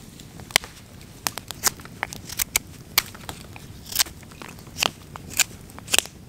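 Wood campfire crackling, with sharp, irregular pops about two or three a second.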